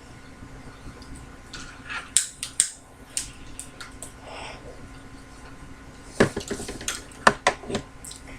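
Scattered clicks, clinks and knocks of hand tools and mower parts being handled while a screw is forced into a plastic part. A few come about two seconds in, and a denser run of them comes past the six-second mark.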